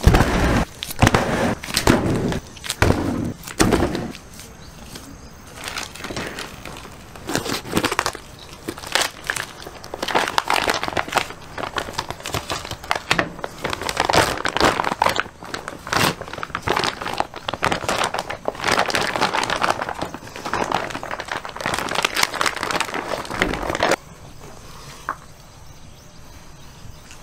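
Plastic meat packaging crinkling and crackling as it is peeled off large cuts of raw beef by gloved hands, with a few heavier thumps in the first few seconds. The handling noise is irregular and stops a few seconds before the end.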